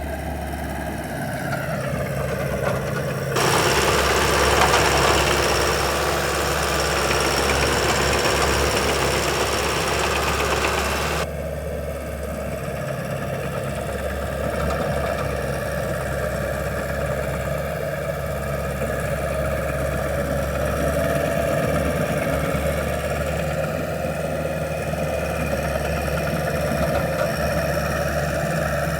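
A 2003 Rayco Super Crawler C87L skid steer's engine runs steadily. From about three seconds in until about eleven seconds, a loud hiss rides over it, then cuts off sharply.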